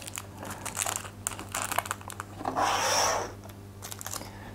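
Packaging crinkling and rubbing as model-kit parts are unpacked by hand, with scattered small clicks and one longer rustle about two and a half seconds in.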